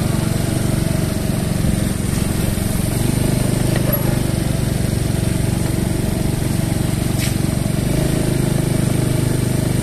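Motor scooter engines running steadily at low road speed, a steady engine hum over a hiss of wind and road noise.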